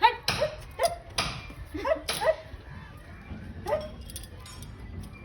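A dog barking in a series of short, sharp barks, most of them close together in the first two and a half seconds and one more just before four seconds in.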